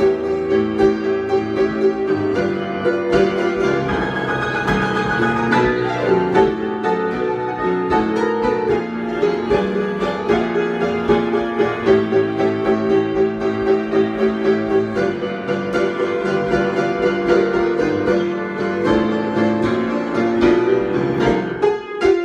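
Improvised piano music, a steady stream of quick notes over sustained low chords.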